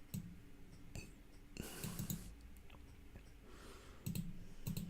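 Faint, scattered clicks of a computer mouse and keyboard.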